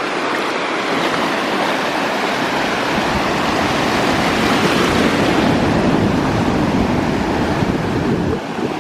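Ocean surf washing ashore, a steady rush that swells through the middle and falls away near the end, with wind buffeting the microphone.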